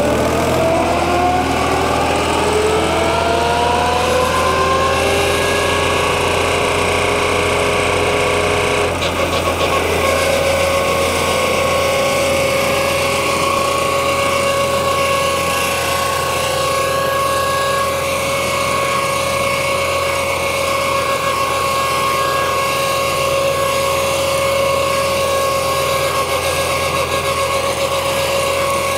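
Tractor-mounted PZ CM 186 drum mower running off the International Harvester tractor's PTO, with a whine that rises in pitch over the first few seconds as the drums spin up and then levels off. It holds a steady whine over the tractor's engine hum as it cuts through tall grass, changing slightly about nine seconds in.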